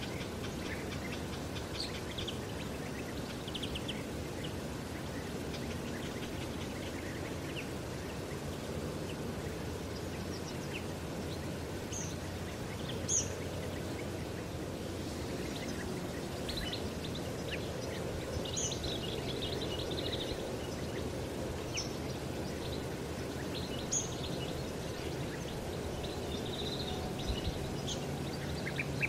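Open-air ambience: a steady low background rumble, with small birds giving scattered short high chirps and brief bursts of calls.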